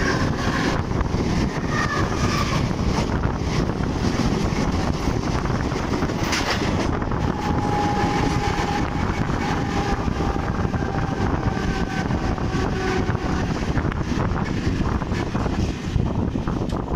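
Electric suburban train running at speed, heard from its open door: a steady rumble of wheels and carriages, with wind buffeting the microphone. A faint high whine comes in for a few seconds midway.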